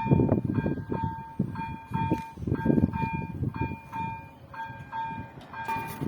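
Railway level-crossing warning bell ringing about twice a second, a clear ding with ringing overtones, over an irregular low rumble.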